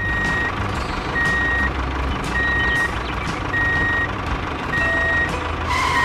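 A truck's reversing alarm beeping five times, about one beep a second, each beep a steady high tone, over a steady engine rumble.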